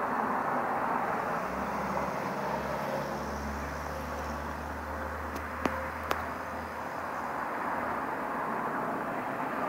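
Caterpillar asphalt paver's diesel engine running steadily: a low drone under a steady noise that stops about seven seconds in. Two sharp clicks come a little past halfway.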